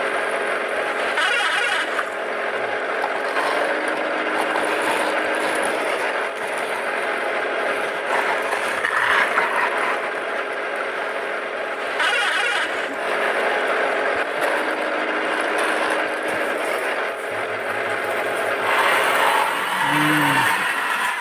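Plastic toy dump truck rolling over the ground, its wheels and gears giving a steady mechanical rattle with a few louder surges.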